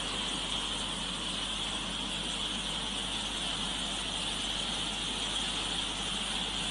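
Flash-flood water rushing through a street, carrying mud and debris: a steady, unbroken rushing noise with a strong hiss.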